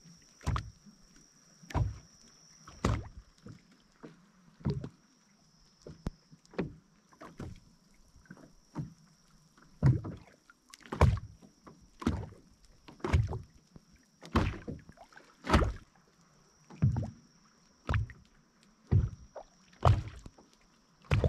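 Small waves slapping and knocking against the hull of a small boat at anchor, one sharp knock every second or so at uneven intervals.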